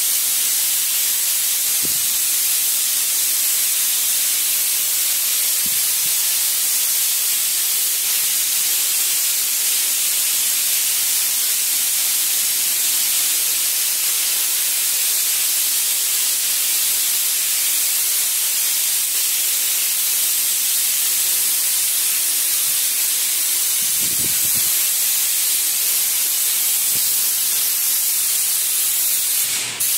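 Airless wall-spray gun hissing steadily as it sprays a coating onto a wall, with a brief break near the end.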